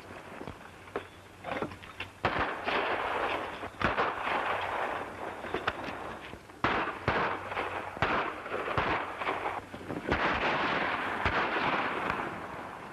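Gunfire: many irregular shots, some close together, over a steady hiss.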